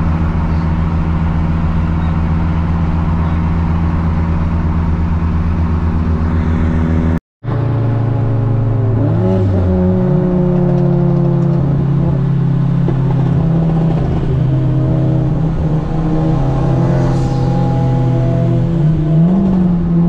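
Turbocharged four-cylinder engine of an Acura RSX, heard from inside the cabin, running at a steady pitch. After a sudden cut midway, its pitch rises a couple of seconds later and then holds. Near the end it gives another short rise and fall.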